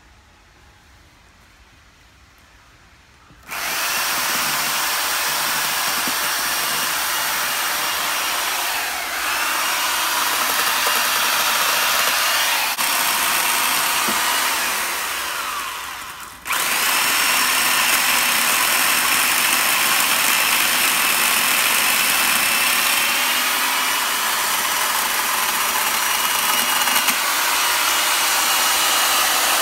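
Corded electric chainsaw starting up about three seconds in and cutting into the trunk of a large bonsai, its whine shifting in pitch as the chain bites into the wood. It stops briefly about halfway, then runs and cuts again.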